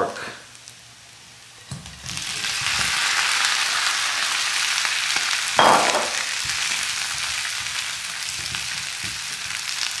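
Seared pork belly pieces dropped into a hot wok and sizzling in the rendered pork fat. The sizzle starts suddenly about two seconds in and holds steady, with one brief louder burst a little past halfway.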